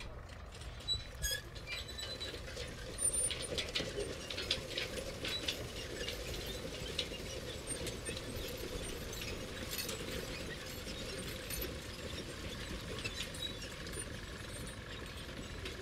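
Plastic clicking and ratcheting from a LEGO Duplo excavator's toothed arm joints as the arm and bucket are swung by hand: rapid, irregular clicks, thickest a few seconds in.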